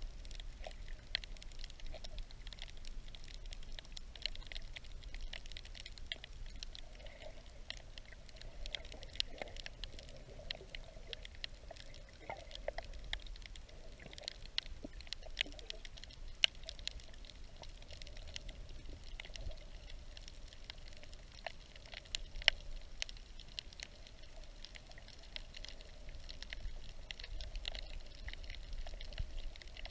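Underwater sound of a shallow coral reef picked up by a submerged camera: a steady muffled water wash dotted with many fine crackling clicks, and a few sharper clicks now and then.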